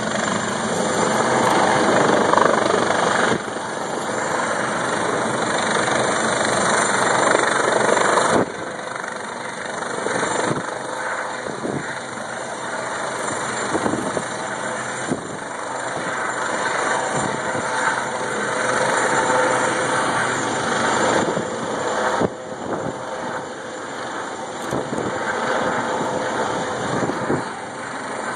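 Helicopter hovering close overhead: a steady, loud rush of rotor and turbine noise with a fast, even rotor beat.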